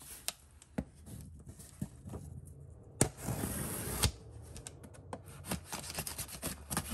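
A knife blade drawn through packing tape along the seam of a cardboard shipping box. Light clicks and taps, then about a second of steady scraping from about three seconds in that ends in a sharp click, followed by more small taps and scratches.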